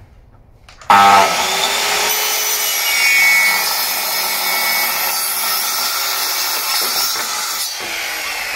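Electric sliding mitre saw starting up about a second in and cutting through a board of three-layer parquet (oak top layer over a softwood core), running loud and steady for about seven seconds; the sound eases slightly near the end.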